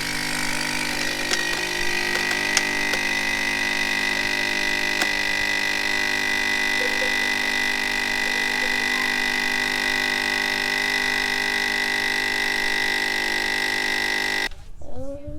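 Coffee machine running as it brews a cup: a steady mechanical hum with a strong high whine. It cuts off suddenly near the end.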